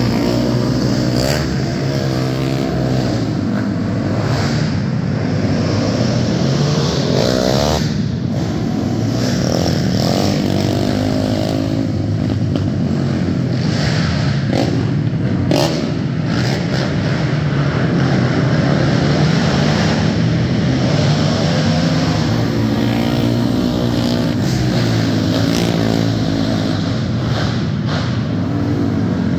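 Several racing ATVs (sport quads) running laps on a dirt track. The engines rev up and down over and over as the riders back off into the turns and accelerate out of them.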